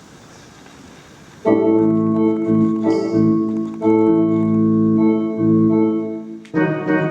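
A keyboard with an organ sound playing held chords for a sound check. The chords start suddenly about a second and a half in and pause briefly twice.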